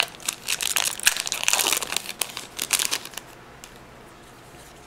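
Pokémon TCG booster pack's foil wrapper crinkling and tearing as it is worked open by hand, stopping about three seconds in.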